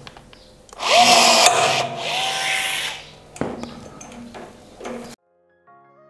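Powered pop rivet gun setting a rivet: a motor whine lasting about two seconds with a short break in the middle, then a sharp click, followed by a few lighter knocks. The sound cuts off suddenly about five seconds in.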